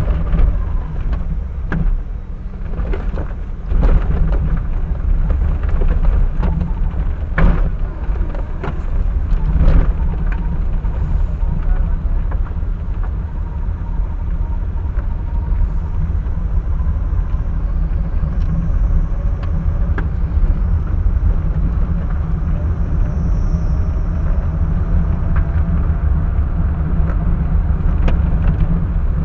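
Car on the move, recorded by a dashcam microphone inside the vehicle: a steady low rumble of engine and road, with several sharp knocks and rattles in the first ten seconds.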